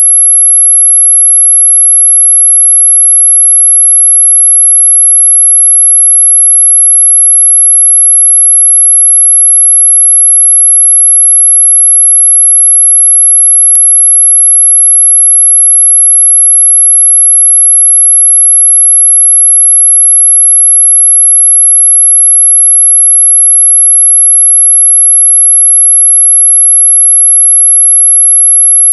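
Continuous high-pitched pure tone, a little above 11 kHz, held steady at one pitch and loudness: a mosquito-repellent tone sold as an ultrasonic sound to drive away mosquitoes.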